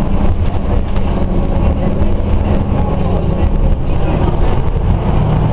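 Interior sound of a Scania OmniCity single-deck diesel bus on the move: the engine running steadily under road and rattle noise, a constant low hum heard from inside the passenger cabin.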